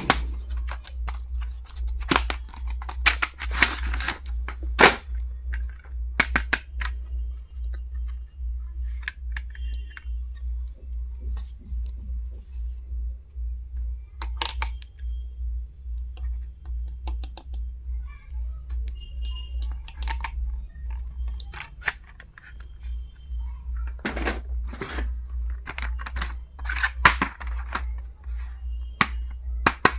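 Background music with a steady low beat, over repeated clicks, rustles and crinkles of stationery packaging and items being handled and opened, busiest near the start and over the last few seconds.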